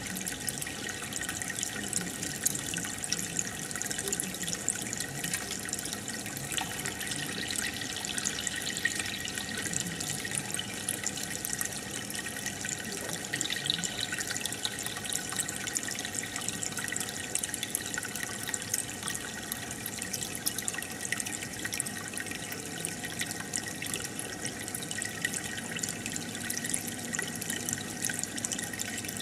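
Aquarium water trickling and bubbling steadily, dotted with many small drips and pops.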